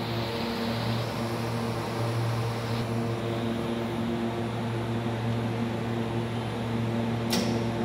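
Steady whir of cooling fans over an electrical hum from a test load bank carrying a Benning Tebevert 2500 inverter under test. A single sharp click near the end marks the switching-in of another load step.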